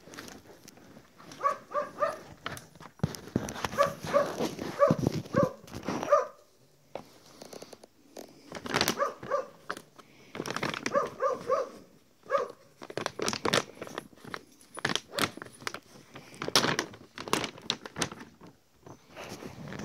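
A thick plastic sack of dry cat food crinkling and being torn open by hand. Several times, an animal gives quick runs of three to six short, high calls.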